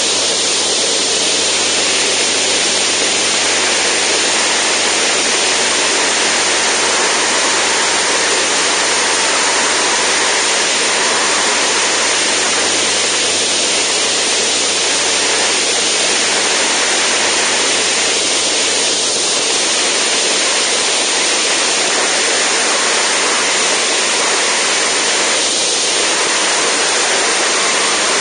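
Zenith STOL CH750 light aircraft in cruise flight: a loud, steady rush of airflow over an externally mounted microphone, with the steady drone of the engine and propeller underneath.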